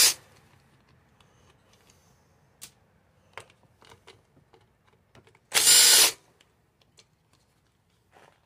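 Cordless impact driver backing out an air filter housing bolt in one short burst of about half a second, some five and a half seconds in. The tail of an earlier burst sounds right at the start. Faint scattered clicks fill the gap between them.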